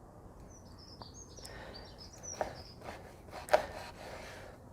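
Birds chirping softly in the background, with a few faint knocks, the clearest about two and a half and three and a half seconds in.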